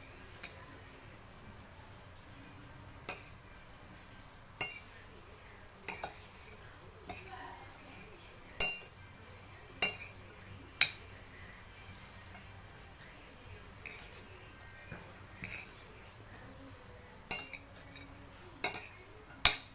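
A utensil clinking against a dish while instant noodles are stirred and mixed with their seasoning: irregular sharp clinks a second or two apart, bunching together near the end.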